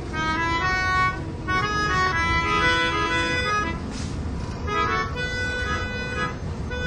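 Melodica played by mouth through its blow tube: a slow tune of held reedy notes, over the low rumble of a moving subway train.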